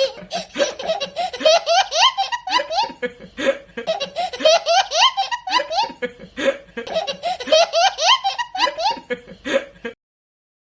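Hearty, rapid laughter that seems to repeat as a loop, cutting off abruptly near the end.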